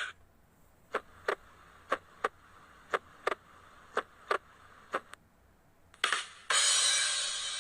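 Pairs of short, sharp clicks, about one pair a second, five pairs in all, followed near the end by a brief burst and then a longer stretch of hissing noise.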